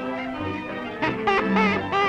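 Early sound-cartoon orchestral score: a small band with brass playing a jazzy tune, its higher notes warbling in the second half.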